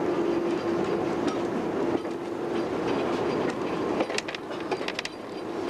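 Narrow-gauge Lxd2 diesel locomotive rolling slowly, its engine a steady drone. About four seconds in, the wheels click and knock several times over the track.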